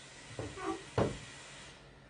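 A single light knock with a dull thud about a second in, after a short softer shuffle: a DJI Mavic Air drone in its plastic propeller guards being set down on a wooden tabletop.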